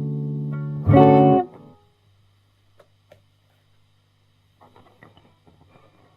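Electric guitar with Guyker LPA2 Alnico 2 nickel pickups. A held chord rings and fades. About a second in, a short strummed chord is quickly cut off. Then a few seconds of faint amplifier hum with small string and handling ticks follow.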